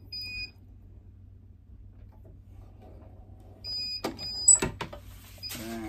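Digital heat press control panel beeping: two short high beeps at the start and two more about four seconds in, with sharp mechanical clacks of the press's clamp and handle around four and a half seconds in.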